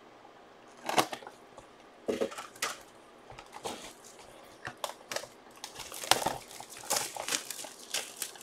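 Crinkling, tearing and scattered clicks of a Panini Mosaic basketball mega box being opened, its plastic wrap and packs handled and torn, busier in the second half.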